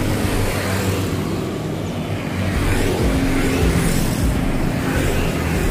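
Street traffic: the steady hum of cars and motorbikes going by on a busy road.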